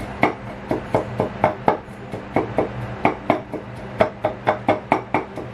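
Wooden spatula knocking against a metal wok while stirring and pressing vegetables: a quick, irregular run of sharp knocks, several a second.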